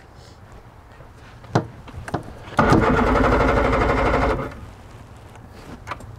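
A click, then an outboard motor's electric starter cranks the engine for nearly two seconds and stops without the engine firing. The boat's battery is dead and the motor is being jump-started.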